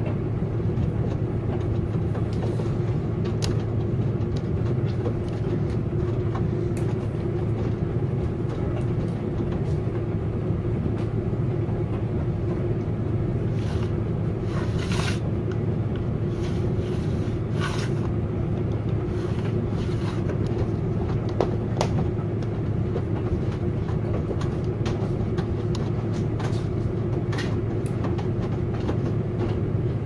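Front-loading washing machines tumbling a wash load: a steady low motor hum and drum rumble, with occasional short swishes and clicks as the wet laundry turns in the drums.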